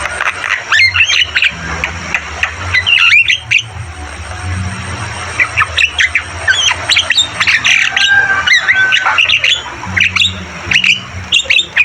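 Javan myna (jalak kebo) calling: rapid runs of harsh chirps and squawks, with a short lull about four to five seconds in, over a steady low hum.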